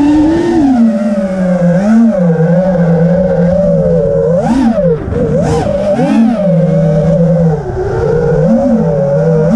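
Quadcopter drone's electric motors and propellers whining steadily, the pitch surging up and back down about five times as the throttle changes during fast manoeuvres.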